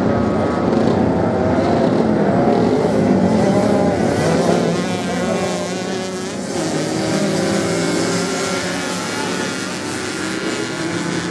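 Several off-road motorcycle engines racing on sand, revving up and down, with their pitch rising and falling as the bikes accelerate and pass. Somewhat louder in the first half.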